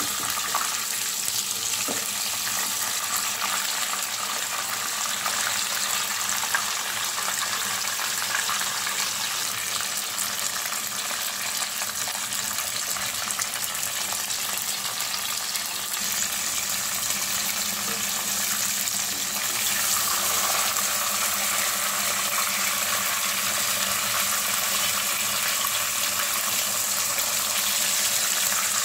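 Whole fish shallow-frying in hot oil in a nonstick wok, the oil sizzling steadily, a little louder after about twenty seconds.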